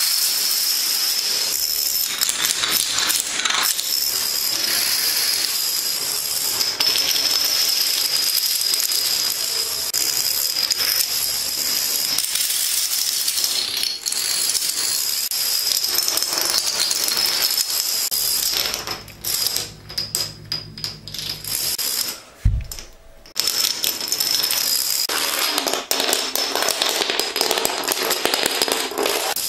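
Long chains of plastic toy dominoes toppling: a fast, continuous clatter of light clicks. It thins and falters about two-thirds of the way through, with a single low thump, then the dense clatter resumes.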